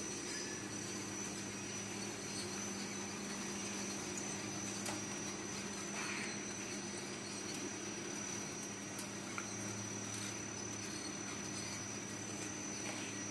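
Automatic flatbread making machine running: a steady motor hum from its conveyor drives with a constant high whine above it, and a few faint clicks.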